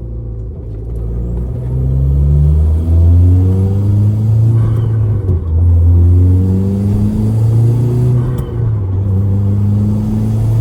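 Hyundai Genesis Coupe 2.0T's turbocharged four-cylinder engine accelerating through the gears: the engine note climbs, drops at a shift about three seconds in and again after five, climbs once more, then settles to a steadier pull.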